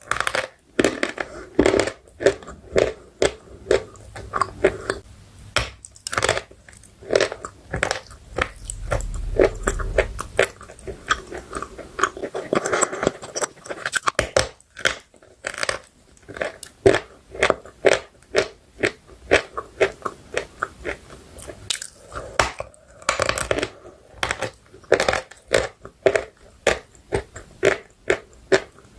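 Close-miked biting and chewing of chalk and clay: repeated sharp crunches, a few a second, with softer chewing between them.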